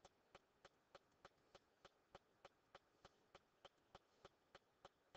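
Near silence with faint, evenly spaced ticks, about three a second.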